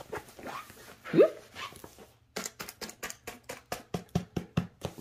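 A rolled diamond painting canvas in its plastic film being rolled backwards by hand, crackling in quick sharp ticks about six times a second. About a second in there is a brief rising tone.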